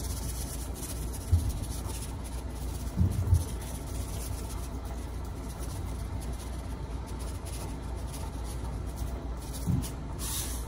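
Cajun seasoning shaken from a canister over a pan: faint scratchy sprinkling over a steady low hum, with a few soft thumps and a brief louder hiss of shaking near the end.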